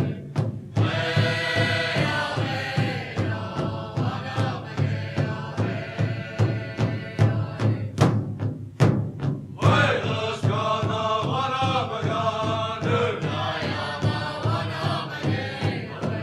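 Powwow song: a group of singers chanting in unison over a steady, even drumbeat. The voices drop out briefly just after the start and again about halfway through, leaving only the drum.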